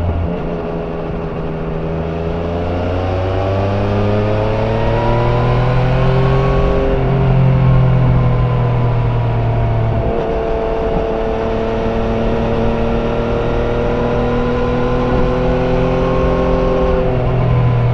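Yamaha Niken GT's 847 cc inline three-cylinder engine through its stock exhaust, heard on board while riding. The engine note rises as it accelerates over the first several seconds, then eases off. There is a sudden step in the note about ten seconds in, and it rises and falls again near the end.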